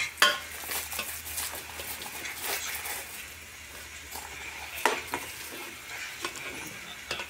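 A foil-lined spice packet crackling as it is torn open by hand, over a faint, steady sizzle of mutton and masala frying in an aluminium pot. A sharp click comes just after the start and another at about five seconds.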